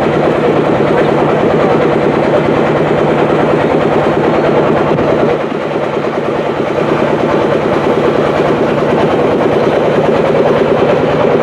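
Motor boat's engine running steadily under way, a loud, fast, even chugging with a steady hum.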